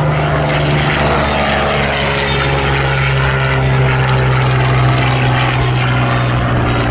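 Vintage single-engine piston fighter at full power climbing out just after takeoff. Its engine and propeller make a loud, steady drone that drops a little in pitch in the first few seconds as the plane pulls away.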